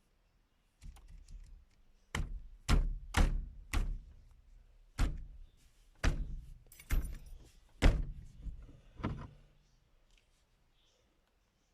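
A series of about nine hard knocks, some half a second to a second apart, each dying away quickly, with lighter clicks and handling noise before and between them.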